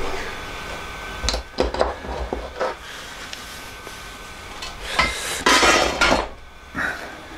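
Metal tools and gearbox parts clinking and knocking while a bandsaw's worm-gear gearbox is being taken apart: a few sharp knocks about a second in, then a louder rattling clatter around five to six seconds in.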